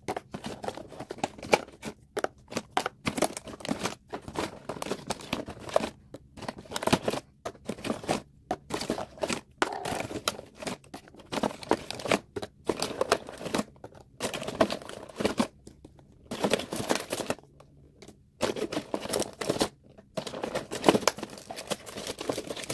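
Clear plastic packaging rustling and crinkling as small lidded plastic clay tubs are pulled out of their display box and stacked. Irregular clicks and knocks of plastic on plastic run throughout.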